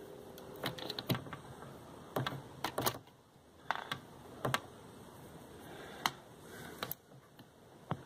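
Irregular small sharp clicks and ticks, about a dozen spread unevenly, from plastic wire nuts and thin low-voltage thermostat wires being handled and twisted by hand.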